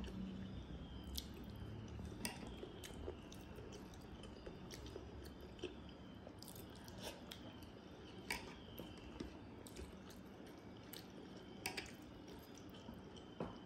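Fingers squishing and mashing rice soaked in water in a bowl, with small wet clicks and drips as the rice is squeezed and lifted.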